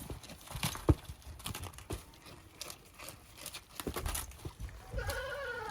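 Light rustling with scattered clicks and knocks of movement in a goat pen, and one short call falling in pitch near the end.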